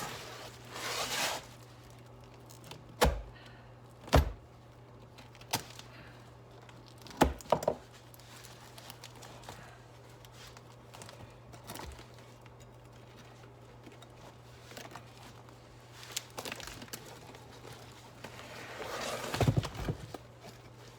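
Handling noises from taking apart a motorcycle seat: scattered sharp knocks and clunks of tools and the metal seat pan, a short rasping noise at the start and a longer one near the end, over a steady low hum.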